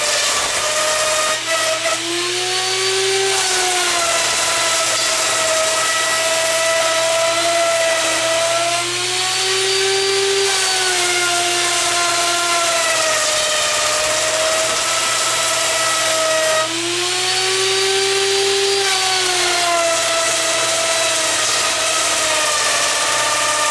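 Router on a homemade router lathe copier, running at speed and cutting into a turning wood blank. Its whine rises and sags in pitch three times as the cut loads and unloads it, over a steady low hum.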